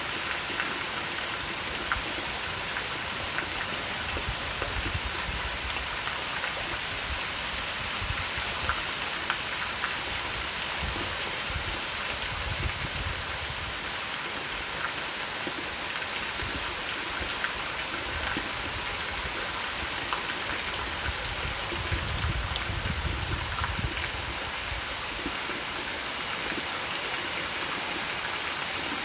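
Heavy rain falling steadily on a concrete terrace: a dense, even hiss of drops with scattered individual patters, and a few low rumbling swells that come and go.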